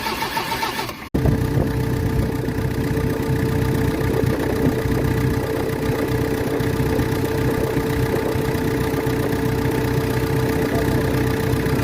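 JCB 3DX backhoe loader's diesel engine idling steadily during an injector leak-up test. The sound drops out for a moment about a second in, then the engine runs on at an even speed.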